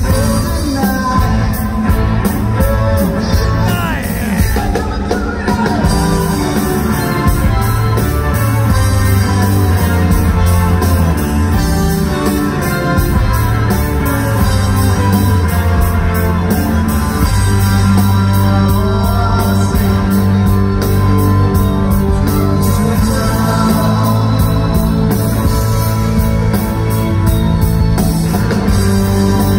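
Live rock band playing at full volume, with electric guitars, drums and keyboards under a lead singer.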